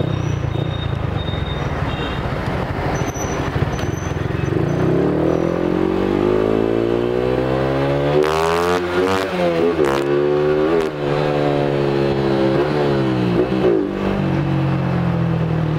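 Yamaha Exciter 135 four-speed automatic-clutch motorcycle, its single-cylinder engine built with a 62 mm BRT cylinder kit, being ridden hard. The engine note climbs steadily from about four seconds in, then drops and climbs again several times as it is run up through the gears.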